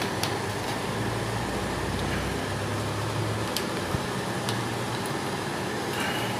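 Steady background noise like a running fan or air conditioner, with a few light clicks of a screwdriver on the metal nuts and washers that fix a floor fan's motor to its grille.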